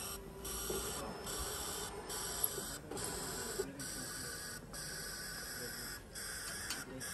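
Automatic coffee machine dispensing frothed milk into a mug: its pump and milk frother run with a steady hiss that breaks off briefly about once a second.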